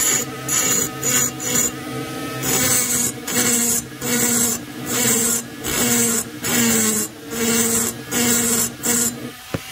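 A handheld rotary grinder's burr cutting inside the transfer ports of an Echo CS-670 chainsaw cylinder, in short repeated passes about one and a half a second apart. Each pass brings a rasping hiss over the motor's steady whine. The passes are chattery as the burr works through the cylinder's hard bore plating.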